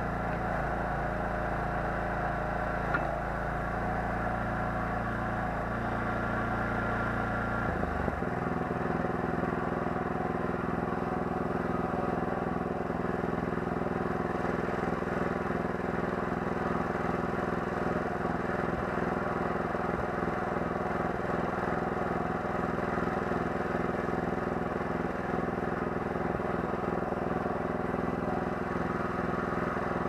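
Small 9 hp engine of a Kellfri towable backhoe running steadily. About eight seconds in its note changes, and it then runs on evenly at the new speed.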